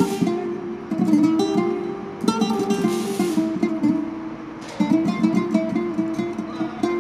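Acoustic guitar music: quick plucked notes with strong strummed chords about a second in, a little after two seconds and near five seconds.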